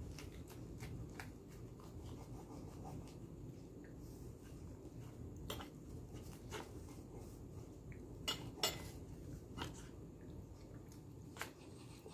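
Knife sawing through a wrap on a plate: soft, continuous rubbing and scraping strokes with a few sharp clicks. The loudest are a pair of clicks about eight and a half seconds in.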